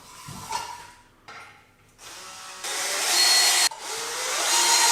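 Power drill driving screws to fasten a wall bracket, its motor running in two loud bursts from about halfway through, the second winding up in pitch as it speeds up.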